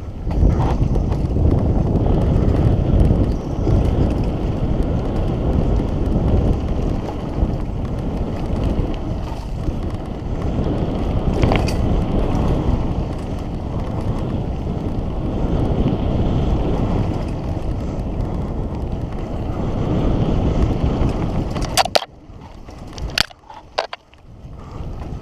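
Mountain bike riding fast down a dirt singletrack: a steady rush of wind buffeting the camera's microphone mixed with tyre rumble and rattling from the bike. About 22 seconds in the rush drops off sharply, leaving a few sharp clicks.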